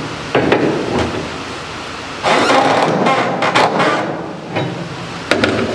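Flatbed trailer strap winch being turned with a winch bar to tighten a cargo strap: sharp metallic clicks and clanks, with a longer burst of clatter about halfway through and a few more knocks near the end.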